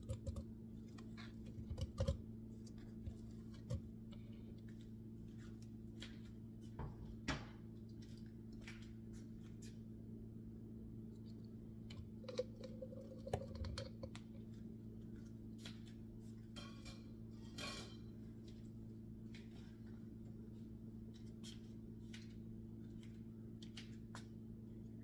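Scattered light clicks and taps of fruit pieces dropping into a clear plastic blender cup, with a plastic bag handled about halfway through. A steady low hum runs underneath.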